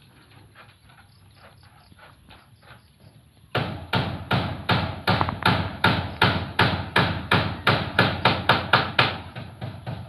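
Hammer nailing galvanized iron roofing sheets on a house roof: faint taps at first, then from about three and a half seconds in a steady run of loud blows, about three a second, easing off near the end.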